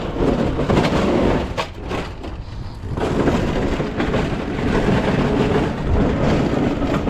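Loud low rumbling noise, dipping briefly about two seconds in, with a few faint knocks.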